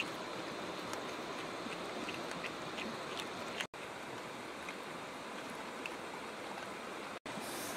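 Steady rush of running water, with faint scattered clicks from animals eating, broken off for an instant twice.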